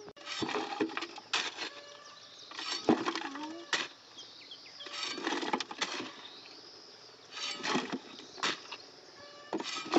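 A metal shovel digging into dry, clumpy soil and scooping it into a metal wheelbarrow: bursts of scraping and crunching strokes about every two seconds.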